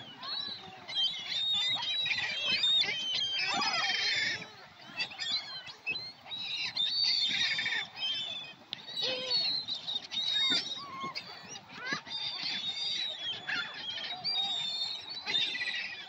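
A flock of gulls calling over one another: many overlapping high squawks and cries that swell and ease in waves, from birds crowding in to be fed.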